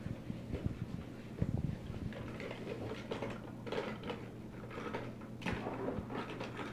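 Die-cast Hot Wheels toy cars clinking and clattering against each other as hands rummage through a plastic bucket full of them, in irregular bursts of small knocks.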